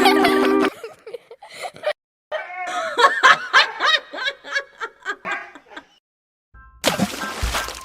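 Snickering, chuckling laughter lasting a few seconds, opened by a brief steady tone; music starts near the end.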